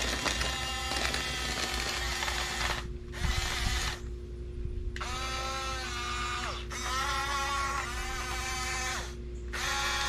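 Huina 1569 remote-control bulldozer's small electric drive motors and gearboxes whining as it pushes and turns through leaf mulch. They start and stop several times, the pitch rising as they spin up and falling as they stop, with short pauses about three to five seconds in and near the end.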